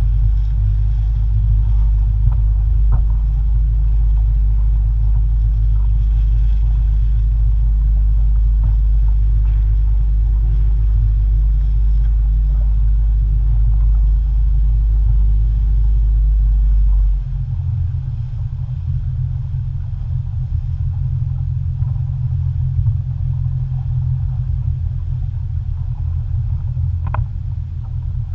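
Motorboat underway: a steady, deep rumble of the boat running. About two-thirds of the way through, the deepest part of the rumble drops away and it settles a little quieter.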